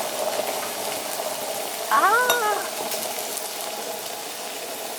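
Pork gabrisal sizzling and crackling steadily as it grills, its fat rendering. About two seconds in, a short voiced exclamation rises and falls in pitch; it is the loudest moment.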